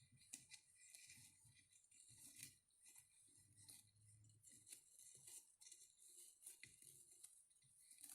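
Faint rustling and small irregular clicks of ribbon being wrapped and handled on a 10-second bow maker.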